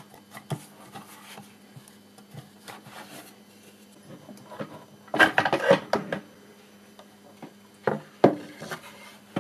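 Wooden parts being handled on a plywood board: light knocks and rubbing, with a louder cluster of knocks and scraping about five seconds in and two more knocks near the end.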